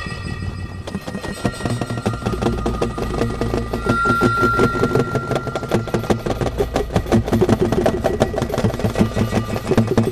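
A rapid, even mechanical clatter over a steady low hum, growing louder about a second in, with a thin high steady tone sounding for about a second near the middle.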